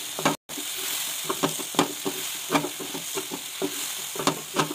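Wooden spatula stirring and scraping thick tomato masala in a frying pan over a steady sizzle, with repeated scrapes and taps a few times a second. The tomatoes have cooked down dry and the spices are being lightly fried in. The sound drops out briefly about half a second in.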